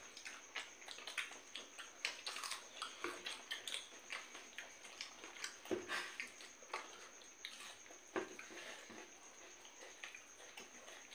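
Quiet eating sounds: several people tearing and chewing rotis by hand, with small irregular clicks and smacks. A faint steady high-pitched whine runs underneath.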